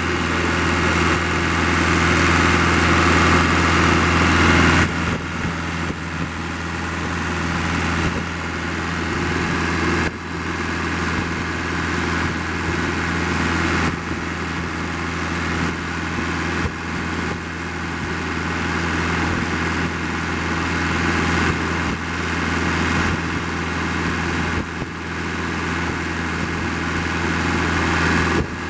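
Kubota V1505 four-cylinder diesel engine running steadily. It gets a little quieter about five seconds in, then holds its even sound.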